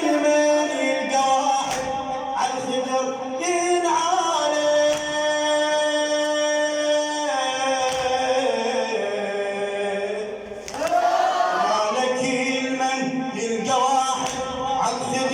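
Music: male voices singing a choir-like vocal line in long held notes that slide from pitch to pitch, with no clear words, as an interlude of a Husseini latmiyya. The sound dips briefly about ten seconds in, then the singing picks up again.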